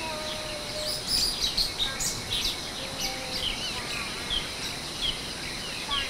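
Birds chirping, with many short high calls coming irregularly over a steady background hiss, and a few longer, lower whistled notes among them.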